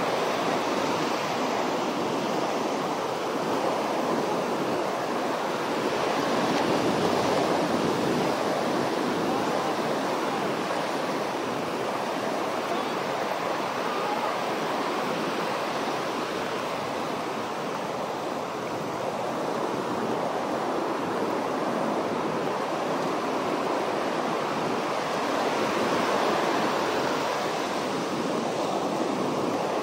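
Ocean surf breaking and washing up a beach: a steady rushing that swells louder a couple of times as bigger waves come in.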